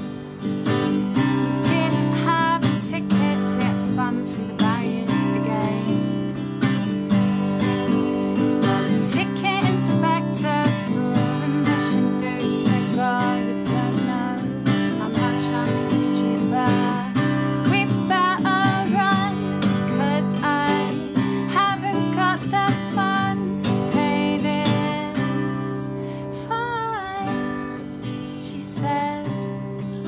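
Acoustic guitar strummed and picked, with a woman singing over it.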